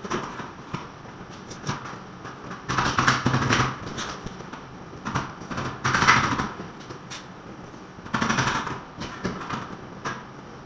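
Building repair work on a wall: several rough scraping strokes, each about a second long, with scattered knocks and clicks between them.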